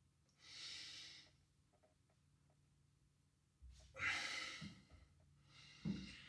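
A man's breaths, like sighs: three airy breaths about a second long each, the one about four seconds in the loudest, with a low thump at its start.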